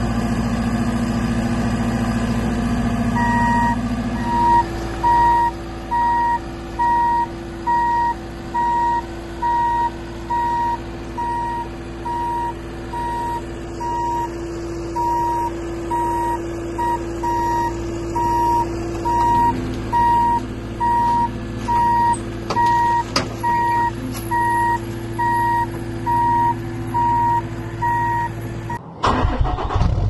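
JCB 3TS-8T Teleskid compact track loader's 74-horsepower diesel engine running as the machine backs up, its reversing alarm beeping about once a second. The engine note rises about four seconds in, and the sound cuts off abruptly about a second before the end.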